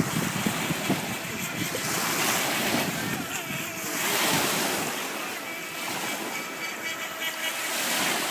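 Wind gusting on the microphone over choppy water, with the faint high whine of an FT007 mini RC speedboat's small electric motor coming in during the second half.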